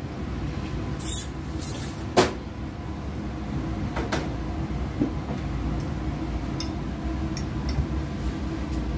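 Kitchen clatter over a steady low hum: a sharp knock a little over two seconds in as a kitchen drawer is shut, and a few lighter clicks of a fork against a glass plate.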